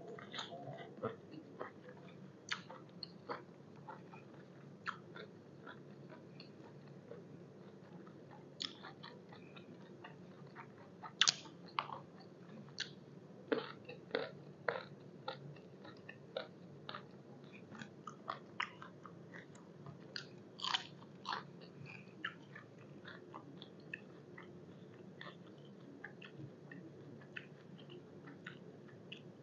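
A person chewing a mouthful of koi sabai nang, lime-cured beef tripe salad, close to the microphone: moist chewing with irregular small crunches and mouth clicks, thickest and loudest through the middle stretch.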